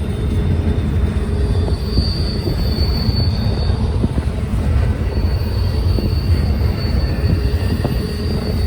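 Train rolling past with a heavy, steady low rumble, and a thin high wheel squeal that comes in about two seconds in, fades, and returns about five seconds in.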